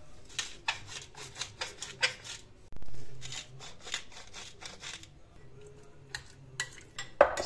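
Wooden pepper mill grinding, a fast run of dry clicking that comes twice. A short, louder rush of noise about three seconds in, and a spoon scraping the bowl near the end.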